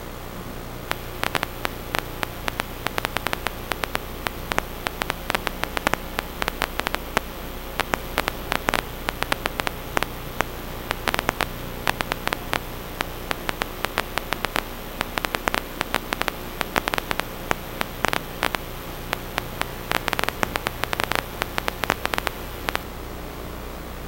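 Electrical static: a steady hiss and hum, with dense irregular crackling clicks that start about a second in and stop near the end.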